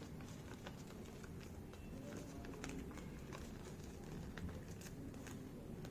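Faint crinkling and small ticks of origami paper being opened and folded inwards by hand, over a low steady hum.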